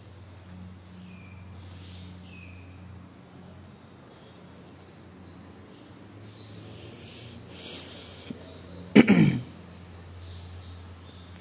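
Faint bird chirps over a steady low hum, then, about nine seconds in, a sudden loud burst of breath from a person close to the microphone, lasting under half a second and falling in pitch.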